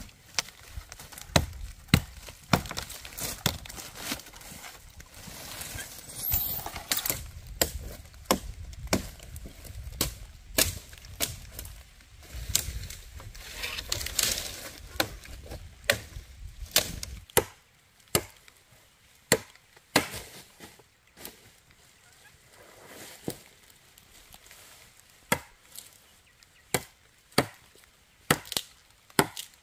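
Dry wooden branch being chopped with a machete: a series of sharp strikes, irregular in the first half with rustling of dry wood and leaves, then steadier strikes about once a second.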